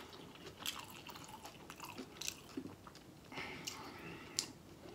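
Close-miked chewing of a corned beef sandwich: soft, irregular wet smacks and mouth clicks as the bread and meat are eaten.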